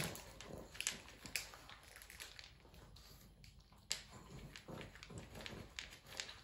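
A pug eating dry kibble from its bowl: faint, irregular crunching and chewing with small clicks, the sharpest about four seconds in.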